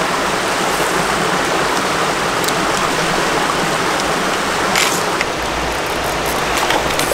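Steady rushing of creek water running over rocks, with a brief click or two near the middle.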